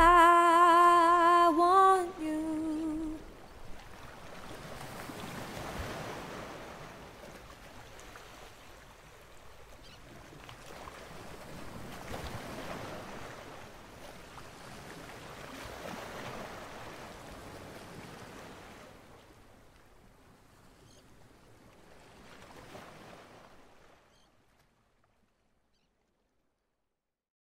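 The song ends on a held chord about two seconds in. Then faint ocean surf washes in, in slow swells every five or six seconds, fading away and cutting to silence near the end.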